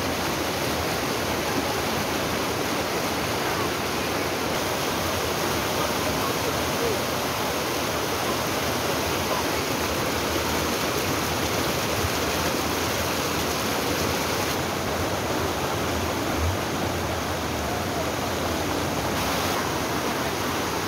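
Muddy floodwater rushing and churning as it pours through a breached river embankment, a steady loud rush of turbulent water.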